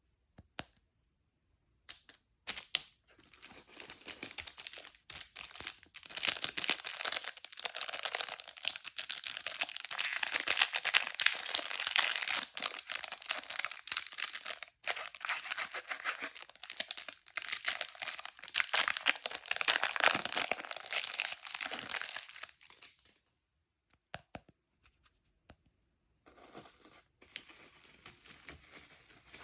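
Plastic candy wrapper being crinkled and torn open by hand, a dense crackle that starts a few seconds in and stops about 23 seconds in. Fainter crinkling follows near the end.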